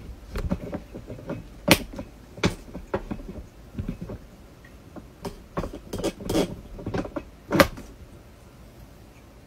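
Handling noise on a smartphone's microphone: irregular bumps, rubs and clicks as the phone is moved and held, with a sharp knock just under two seconds in and another about two seconds before the end.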